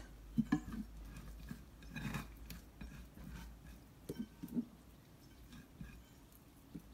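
Wet hands working soft, sticky sfenj yeast dough in a glass bowl: a handful of short, soft squelches and slaps.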